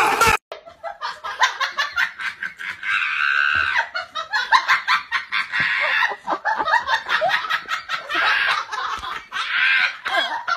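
A person laughing hard in rapid bursts, with a few longer high-pitched stretches, starting about half a second in.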